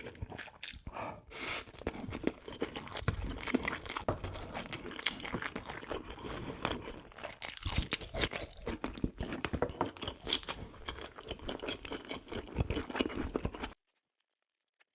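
Close-miked eating: a person chewing and crunching food with wet clicks and crackles, cutting off abruptly near the end.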